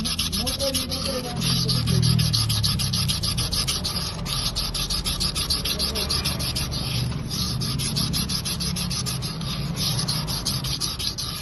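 Sandpaper rubbed in quick back-and-forth strokes over a Honda Activa's drum brake shoe linings, roughening their hardened, glazed surface, which is the cause of the squeal when braking.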